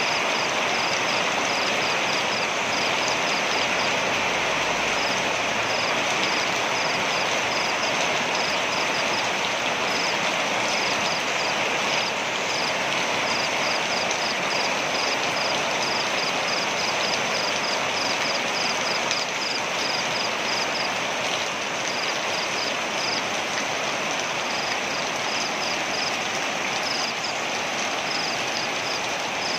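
Waterfall: the steady rush of falling water, overlaid with runs of rapid, high-pitched chirps that come and go in short bursts.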